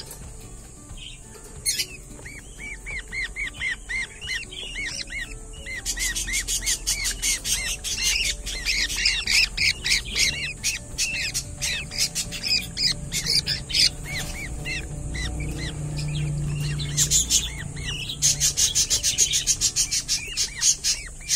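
Young budgerigars in a nest box chirping in a fast, even run of short calls, about three a second. From about six seconds in, and again near the end, they grow louder and denser, with harsher overlapping squawks.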